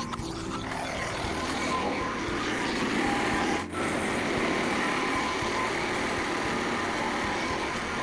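Frontier OS27 portable bandsaw mill running steadily, its engine and blade making a continuous mechanical noise that briefly dips about three and a half seconds in.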